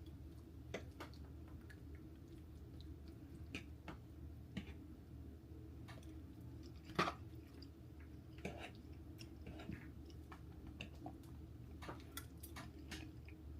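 A person eating: faint chewing with scattered small clicks, one louder about seven seconds in, over a steady low hum.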